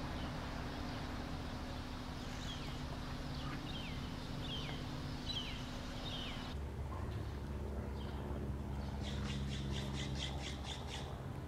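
Wild parrot calls: a run of short falling chirps about every half second in the first half, then near the end a quick series of about eight harsh squawks, typical of red-masked conures, over a steady low background hum.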